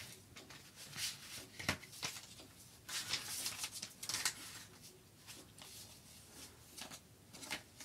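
Cardboard and paper packaging of an Apple Watch sport band being handled with disposable-gloved hands: soft rustling and sliding as the card insert and band tray are pulled out, with a sharp tick a little under two seconds in and the busiest rustling around three to four seconds in.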